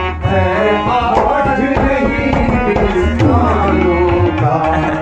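Live Indian folk-devotional music: tabla drumming with harmonium and singing, loud and close.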